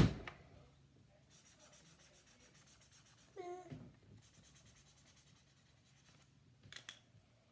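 A marker scribbling on paper in rapid, even back-and-forth strokes, in two stretches of a couple of seconds each. There is a sharp click right at the start and a short hummed voice midway.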